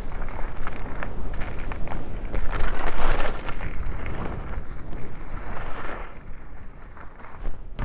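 Skis running and scraping over snow, with rushing wind on a microphone muffled under jacket layers and scattered small knocks. The rush is loudest about three seconds in and eases off near the end, where there is a sharp knock.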